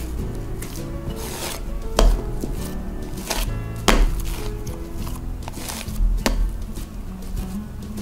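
Wet bread dough being stretched and folded by hand in a glass bowl, the dough slapping down into the bowl at about 2, 4 and 6 seconds. Background music plays throughout.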